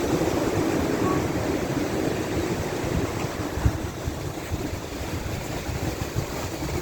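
Wind buffeting the microphone over the steady wash of sea surf, with one brief gust thump about halfway through.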